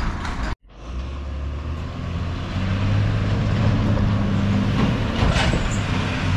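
Heavy multi-axle truck's diesel engine working under load as the truck is driven around a hairpin bend. Its drone steps up and holds about two and a half seconds in, with a short hiss near the end. The sound drops out for a moment just under a second in.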